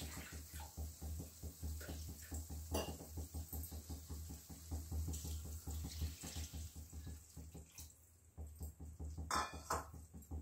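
Water being poured from a small steel bowl into a steel kadhai of fried rice, splashing into the pan.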